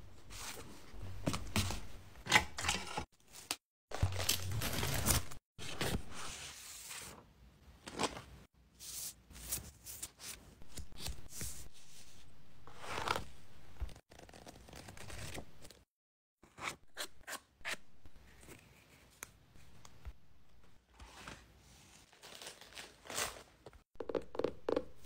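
Paper stationery (journal set, sticker sheet, hardcover planner) handled close to the microphone: irregular short rustles and light taps, with a few longer stretches of rustling.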